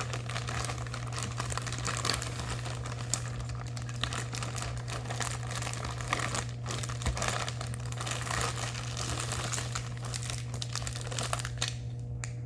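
Diamond painting kit packaging being handled and opened, crinkling with many small irregular crackles and clicks that die down shortly before the end.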